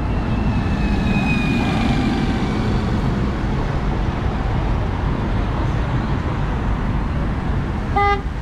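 Busy city street traffic running steadily, with a faint falling whine over the first few seconds. Near the end a car horn gives one short toot.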